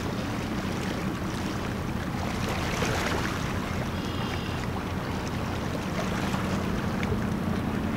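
Steady low drone of a passing lake freighter's single diesel engine, growing a little stronger near the end as the ship draws level, with wind on the microphone.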